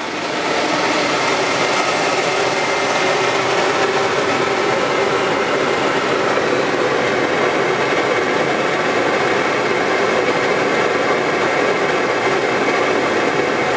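Raypak Hi Delta boiler running in its firing sequence while the hot surface igniter draws current, its combustion blowers making a loud, steady rush of air with faint steady tones. The sound rises within the first half second and then holds even.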